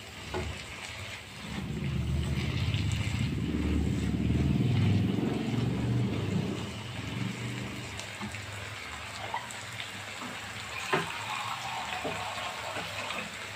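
Wooden spatula stirring chopped banana stem and lentils in a frying pan, with a loud low rumble for several seconds, then a few light taps.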